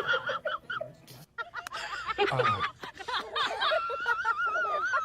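Short bursts of chuckling laughter, then a long, wavering, high-pitched vocal note over the last second and a half.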